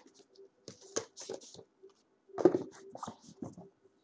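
Cardboard retail box of an Asus PadFone and its packaging being handled on a table: a run of irregular knocks, scrapes and rustles, the loudest about two and a half seconds in, over a faint steady hum.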